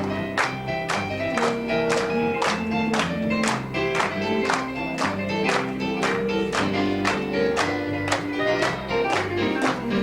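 Live country-gospel band playing an instrumental break: guitar, bass and piano keep a quick, even beat of about four strokes a second under held melody notes.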